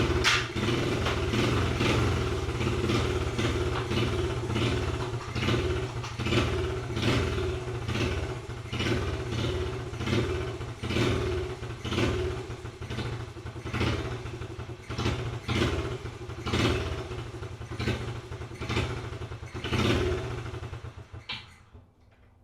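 1991 Honda Z50R's small four-stroke single-cylinder engine running with the throttle blipped over and over, the note surging and falling about once a second, then dying out about a second before the end. It has not yet settled into a steady idle after the carburettor cleaning.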